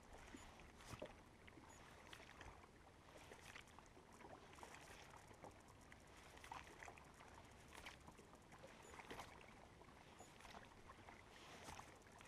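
Near silence: faint lapping of small waves against a boat, with a few light clicks scattered through it.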